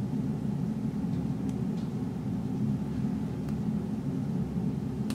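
Steady low background hum, even in level, with a few faint light ticks from fingers handling paper stickers on a planner page.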